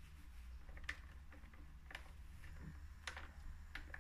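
A steam iron pressing a curtain seam on an ironing board: faint fabric handling with about four light clicks spread over a few seconds, over a low steady hum.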